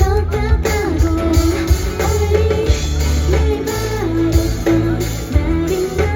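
Loud rock-style band music with a singing voice, guitar and drums.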